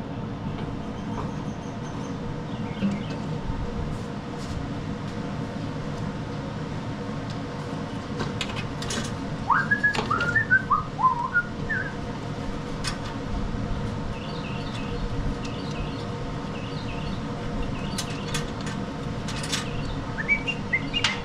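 Small birds chirping and whistling: a quick run of rising-and-falling chirps about halfway through, and fainter high twitters near the end. Underneath is a steady low hum, with a few sharp clicks scattered through.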